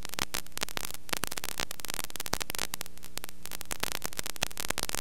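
Electrical crackling static over a steady mains hum: recording noise, with no performance sound in it.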